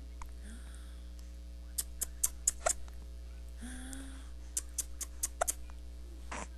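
Hiccups: short squeaky hics about half a second in and around four seconds, among runs of sharp clicks, with a loud click near the end.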